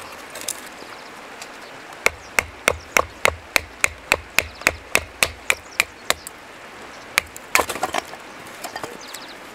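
Kindling being split with a hatchet: a quick run of about fifteen even wooden knocks, roughly three a second, as the blade is driven down into the stick, then a sharper crack and a short clatter of wood as it splits near the end.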